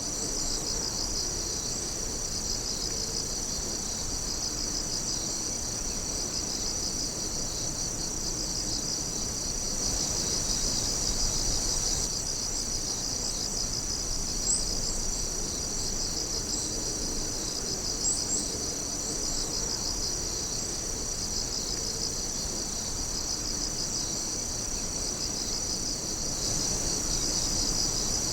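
Chorus of singing insects: a continuous high trill with a quicker pulsing chirp under it, steady throughout.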